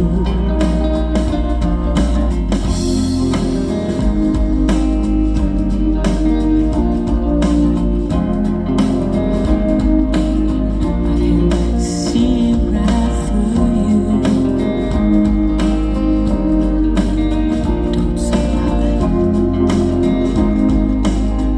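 Instrumental passage of a pop-rock song with electric guitar over a strong, steady bass line, played through a Bluetooth speaker with a 10-inch bandpass subwoofer.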